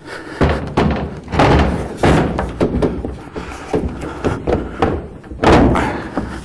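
Repeated knocks and thuds of wooden sauna wall panels being set and fitted together, with a louder bang about five and a half seconds in.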